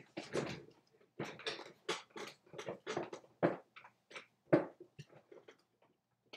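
A man laughing hard in short, breathy gasps with quiet gaps between, tailing off near the end.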